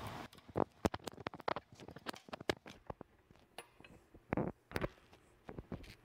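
Irregular sharp clicks and knocks of the metal shaft coupling halves on a Grundfos LCSE centrifugal pump being pried apart and lifted off the shaft by hand.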